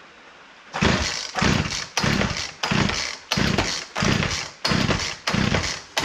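Recoil starter cord of an old two-stroke chainsaw being yanked over and over, about nine quick pulls in a row, each a sharp rasp that fades, with the engine not catching. The owner takes it for a fouled spark plug that needs cleaning again.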